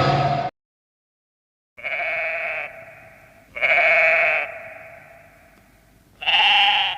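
A burst of music cuts off abruptly, then after a moment of silence an animal bleats three times, each call loud at first and trailing away.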